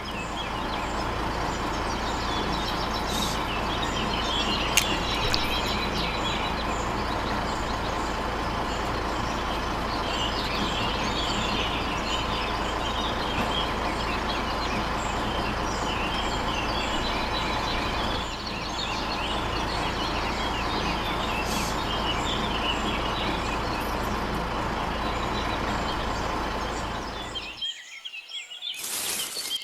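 A steady mechanical running noise, like a small motor, that holds an even level and then cuts off suddenly near the end. Birds chirp over it throughout.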